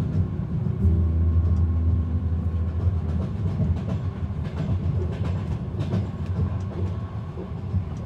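Passenger train heard from inside the carriage: a steady low rumble of running on the rails, with scattered clicks from the wheels. A music track dies away in the first second or two.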